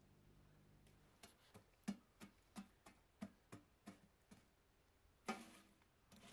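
A metal poker knocking among burnt-down embers in a metal fire-box. It makes a run of about ten sharp clicks, roughly three a second, then one louder knock with a short scrape about five seconds in.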